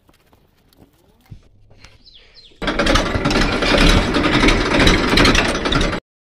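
Faint rubbing and light ticks from a rag wiped over a tractor's bonnet. About two and a half seconds in, a Massey Ferguson 1035 DI tractor's diesel engine is suddenly heard running loud and close, with a rapid clatter. It cuts off abruptly near the end.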